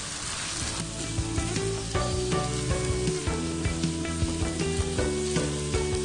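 Minced meat and chopped onions sizzling in hot oil in a frying pan, stirred with a silicone spatula. Soft background music with held notes comes in about a second in.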